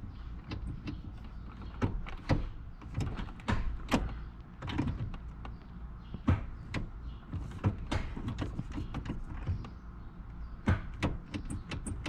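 Column-mounted gear shift lever of a Mercury Grand Marquis being wobbled by hand, giving irregular plastic-and-metal clicks and clunks: the lever has excessive play in its mount.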